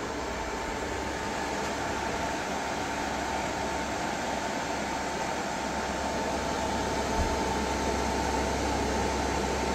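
Steady whirring hiss with a low hum and a thin, steady high whine. This is the hybrid inverter and the 3000 W electric kettle running together at full load, drawing about 118 A from the 24 V LiFePO4 battery.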